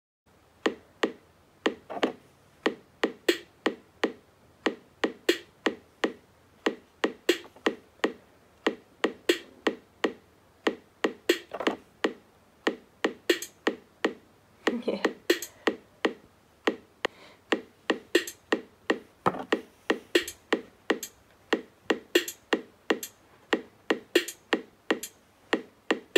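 Novation Circuit groovebox playing a simple drum machine pattern: short, evenly spaced hits, a couple a second, with one lower, fuller hit about midway.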